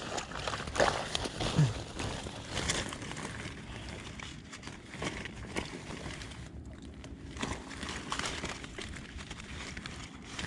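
Footsteps wading through shallow water and marsh grass: boots sloshing and swishing through the grass at an irregular walking pace.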